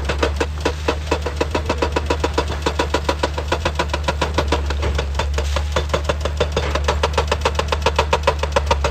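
Excavator-mounted hydraulic rock breaker hammering rock in a fast, even rhythm of about six blows a second, over the steady drone of the excavator's diesel engine.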